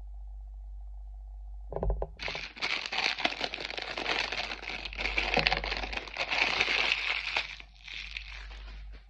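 Plastic packaging being crinkled and torn open by hand: a dense crackling rustle with many small snaps. It starts about two seconds in and stops about a second before the end.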